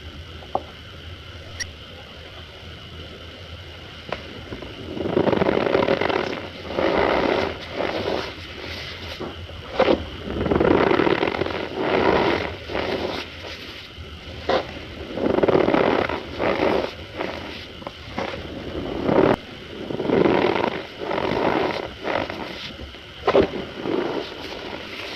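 Cornstarch powder squeezed and pressed by hand, making squeaky crunches in repeated strokes about a second long from a few seconds in, with a few sharp clicks between them.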